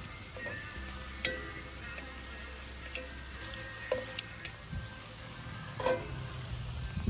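Potatoes frying in oil in a cast iron pan: a steady sizzle, broken by a few sharp clicks, the loudest about a second in.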